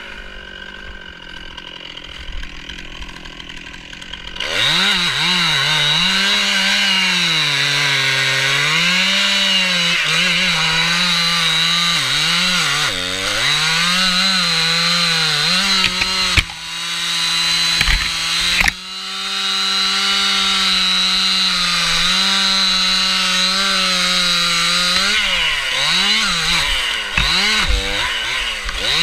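Stihl MS 261 two-stroke chainsaw idling, then throttled up about four seconds in and running at high revs, its pitch repeatedly dipping and recovering as it works through wood. Two sharp knocks come about two seconds apart near the middle.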